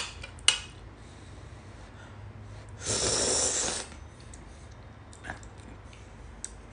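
A spoon clicks against a plate, then about three seconds in comes one loud slurp of soup lasting about a second, followed by a couple of lighter spoon clicks. The eater slurps because the soup is too hot.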